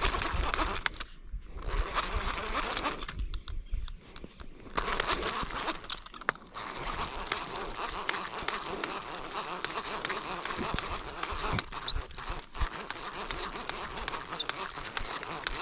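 Baitcasting reel being cranked as line is wound in, with rustling handling noise and small clicks. Short, high chirps come through over the second half.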